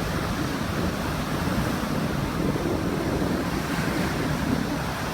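Sea surf: waves washing in as a steady rush of noise.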